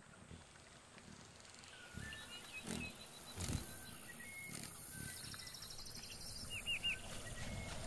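Faint outdoor nature ambience with birds chirping: short repeated chirps and fast trills, plus a few low thuds.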